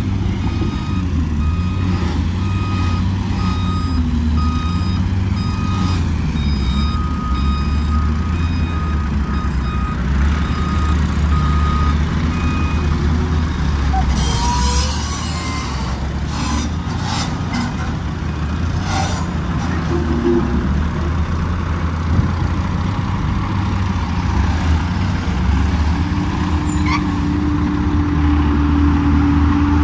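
Heavy diesel engines of a wheel loader and dump trucks running steadily, with a backup alarm beeping about once a second for the first dozen seconds. About halfway, a loud rush of noise for about a second as a loader bucket of material drops into a dump truck's bed, followed by a few knocks; near the end a dump truck's engine comes closer and grows louder.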